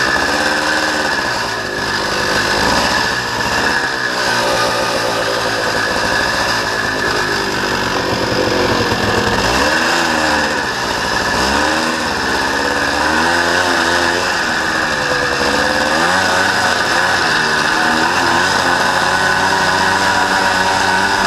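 Honda Odyssey FL350R's single-cylinder four-stroke engine running hard, its pitch rising and falling repeatedly as the throttle is opened and eased off.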